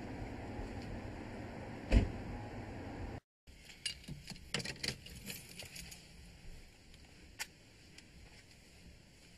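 A car door slamming shut with one loud thump about two seconds in, over a steady low background rumble. After a short gap, a run of small clicks and rustles inside the car, and a single sharper click near the end.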